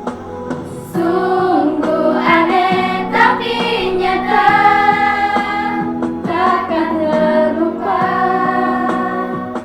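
A children's choir sings in unison with held notes, accompanied by guitar. The singing comes in about a second in and carries on nearly to the end.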